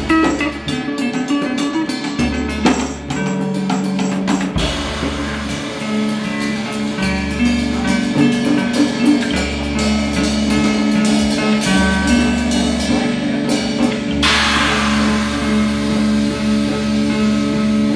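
Live band playing: drum kit and guitar over sustained low bass notes, with a bright cymbal wash coming in about fourteen seconds in.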